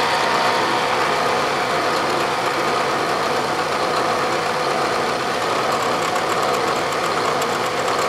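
Bridgeport vertical milling machine running with its spindle turning an edge finder: a steady, even machine hum at a constant level.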